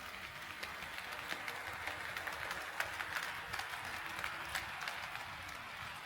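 HO scale model train rolling along the track, its wheels clicking irregularly over the rail joints over a steady running hiss. It grows a little louder toward the middle and then eases off as the train passes.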